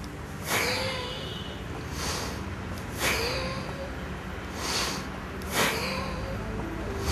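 A man breathing forcefully and audibly, with a series of short hissing breaths in and out, five or six of them about one to two seconds apart. These are the deep exhalations that empty the lungs for the uddiyana bandha abdominal lock.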